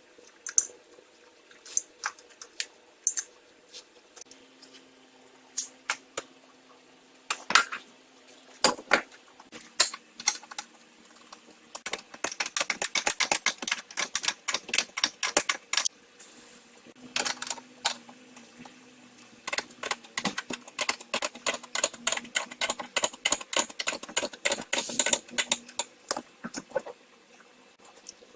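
Metal tool clanks, then long runs of rapid ratchet clicking as coil-spring compressors are tightened down on a front shock absorber strut.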